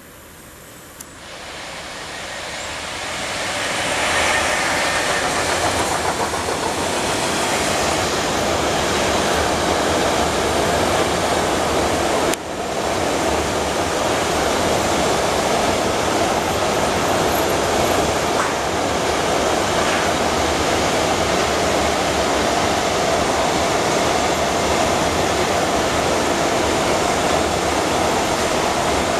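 Freight train of rail tank wagons passing close by: the steady noise of the wheels running on the rails. It swells as the train approaches over the first four seconds, then holds loud and even, broken only by a short sudden dip about twelve seconds in.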